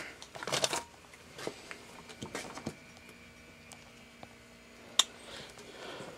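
Handling noise of a new 12-volt air compressor being unpacked: rustling packing material and a few light knocks, with one sharp click about five seconds in. The compressor is not running.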